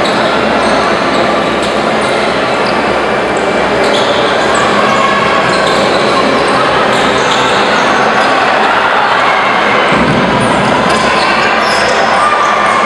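Basketball game in an arena: a steady din of crowd noise filling the hall, with the ball bouncing on the hardwood court and sneakers squeaking in short high chirps.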